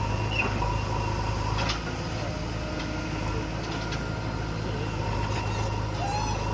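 Heavy diesel engine running steadily at low revs, with a few faint clicks and knocks over it.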